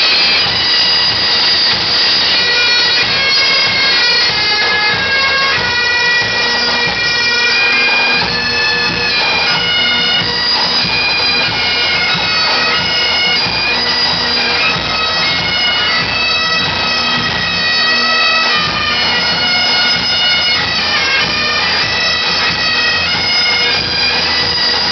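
Several Great Highland bagpipes playing a tune together at close range and loud, the drones holding one steady note under the changing melody.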